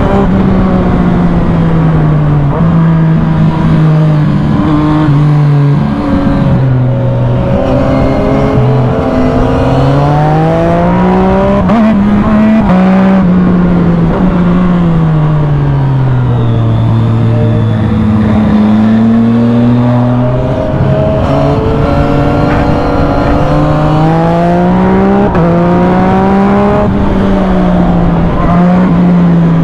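Yamaha MT-09 SP's inline-three engine through an Arrow full exhaust system, under way: the engine note rises and falls again and again, stepping with gear changes, dropping lowest a little past the middle before building again.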